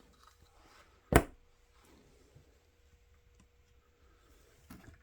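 Plastic LEGO pieces being handled: one sharp loud clack about a second in, with faint clicks and rustling around it and another small click near the end, as the tiled top of a brick-built container is taken off and handled.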